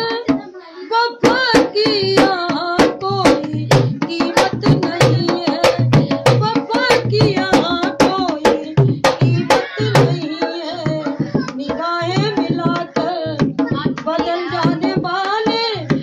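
A woman singing a folk song while playing a rope-laced dholak with her hands: quick, steady strokes, deep bass thumps under sharp slaps, with a brief break in the drumming about half a second in.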